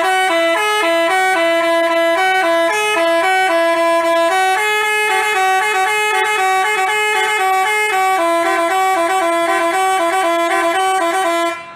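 Basuri telolet bus horn playing a quick, buzzy tune of stepped notes, loud and unbroken, cutting off just before the end.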